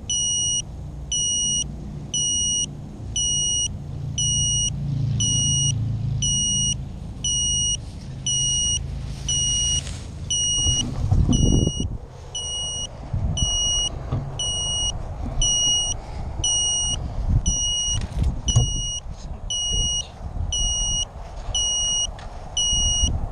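A crashed FPV racing drone's lost-model beeper sounding a short high beep a bit faster than once a second, over low wind rumble on the mic. There are louder knocks and rustling about halfway through and again later, as the drone is moved.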